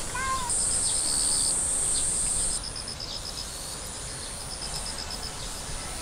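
Summer insects in open countryside: a loud, steady, high-pitched buzz through the first half, over repeated trains of rapid high pulses at about eight a second. A bird gives a few short chirps at the very start.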